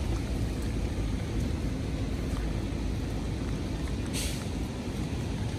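Steady wind buffeting the microphone, a low rumble under an even hiss, with a brief sharper hiss about four seconds in.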